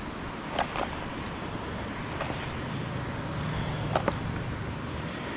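Steady rush of fast-moving creek water, with a few light knocks in pairs about half a second in and again about four seconds in.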